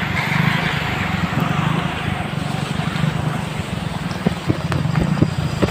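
Heavy monsoon rain pouring down in a steady hiss, with a low steady engine hum underneath and a few sharp taps in the last couple of seconds.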